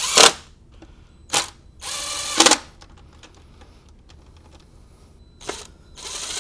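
Small cordless electric screwdriver whirring in short bursts as it drives the intercooler cover bolts in: three runs of under a second each, with two brief blips between them.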